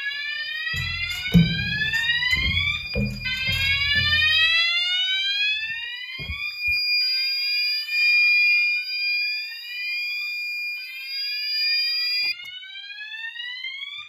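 Unipos fire alarm siren wailing in repeated rising sweeps, with a steady high-pitched tone over it that cuts off suddenly about twelve seconds in. Low thumps of handling and steps in the first few seconds.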